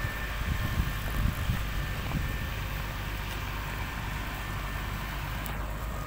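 Mitsubishi motor grader's diesel engine running steadily as the machine grades a gravel road base, a low even rumble.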